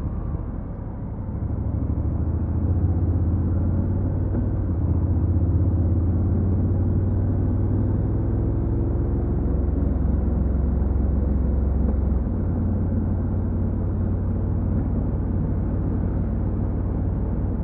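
Honda NC750X motorcycle's parallel-twin engine and stock exhaust running on the move, a steady low drone. It dips briefly about a second in, then picks back up, and its pitch shifts about twelve seconds in.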